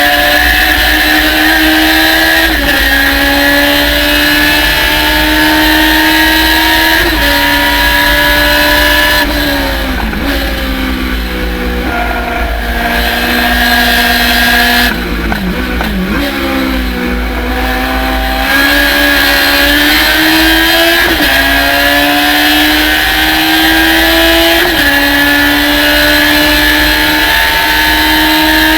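Race car engine at full throttle, its pitch climbing through the gears with a drop at each upshift. Twice it comes off the throttle and the pitch falls through downshifts, about ten and sixteen seconds in, before it pulls hard again.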